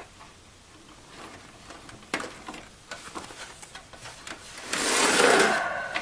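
A red SATA cable being handled and pulled out of a desktop computer case: a few faint clicks, then near the end a loud rubbing scrape lasting about a second.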